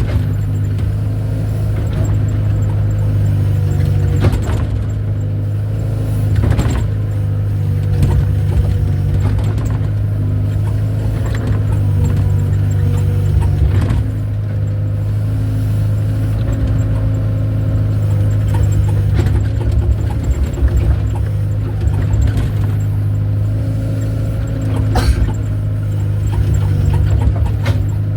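Excavator engine running with a steady low drone, with a few sharp knocks over it.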